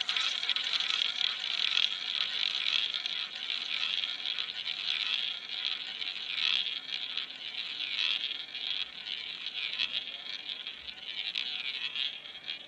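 Roulette ball rolling around the track of a spinning roulette wheel: a steady, high whirring rattle.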